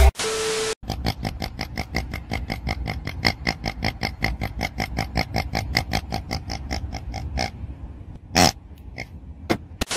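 A tuned car's exhaust stutters in a rapid run of pulses, about seven a second, with a grunting, pig-like quality. Near the end comes a single short squeak from a squeezed rubber pig toy.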